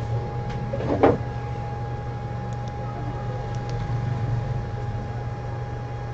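Steady low room hum with a thin constant tone above it, and a single knock about a second in.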